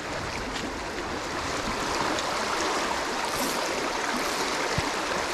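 Shallow creek water rushing steadily over riffles and rocks.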